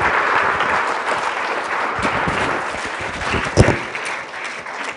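A class of students applauding, thinning out toward the end, with one sharp thump about three and a half seconds in.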